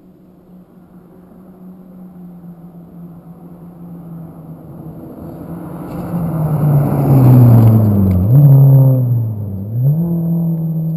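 A rally car at speed on a gravel stage, its engine growing steadily louder as it approaches, then passing close with tyre noise on gravel. As it goes by, the engine note drops, climbs, dips again, and climbs as the car accelerates away.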